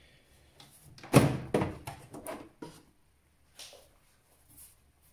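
A series of knocks and clunks from hard objects being handled, the loudest about a second in, then several lighter ones.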